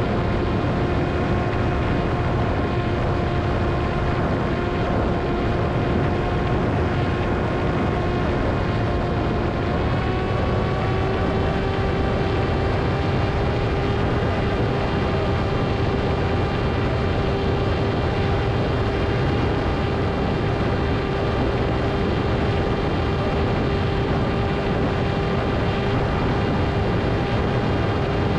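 Electric motor and propeller of a Ritewing Hardcore 38 flying wing, humming steadily in flight over a low rush of wind. Its pitch steps up slightly about ten seconds in, as the throttle is raised.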